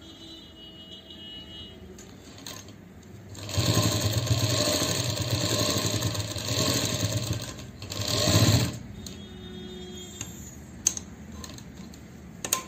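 Sewing machine running as it stitches through the cloth: one run of about four seconds starting a few seconds in, then a short second burst. A couple of sharp clicks come near the end.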